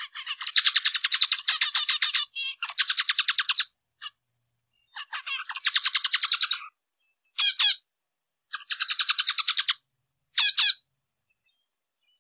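Zebra finch singing in six bursts of rapid, buzzy notes with short pauses between them. The last two bursts are brief.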